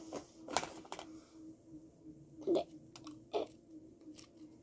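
Scattered soft clicks and taps of hands handling and pulling apart a lump of homemade play dough close to the microphone, about seven separate ticks with no rhythm, over a faint steady hum.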